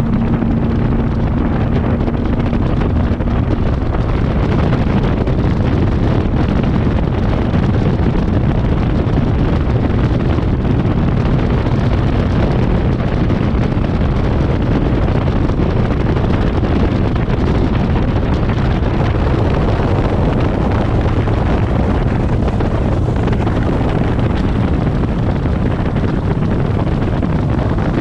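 Bass boat's outboard motor running steadily at speed, with heavy wind buffeting on the microphone.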